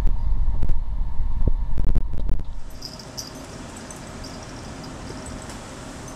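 Low rumbling noise with scattered clicks, which drops away about two and a half seconds in, leaving a quieter steady outdoor background with faint high chirping.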